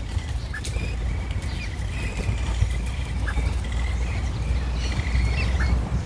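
Capybaras giving short, high whistling chirps, repeated irregularly, over a steady low rumble.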